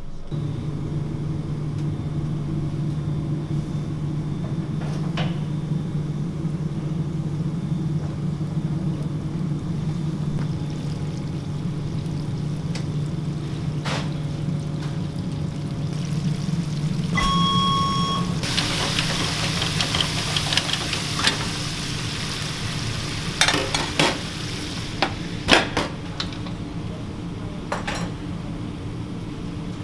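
A steady low hum of kitchen equipment, then a short electronic beep. Just after it, breaded chicken pieces sizzle loudly in the hot oil of a Henny Penny pressure fryer for several seconds, with sharp metal clanks from the basket and lid near the end.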